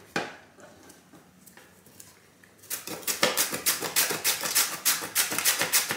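A carrot being grated on a plastic hand grater with metal blades: a single knock at the start, then from about three seconds in a steady run of grating strokes, about four or five a second.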